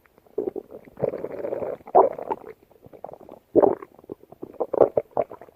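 Stomach growling and gurgling in irregular bursts, with crackly runs between them; the loudest rumbles come about two, three and a half and five seconds in.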